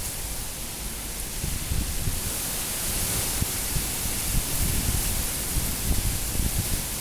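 Super Cyclone Amphan's high wind blowing in gusts: a steady rushing hiss that swells from about two seconds in, over uneven low buffeting of wind on the phone's microphone.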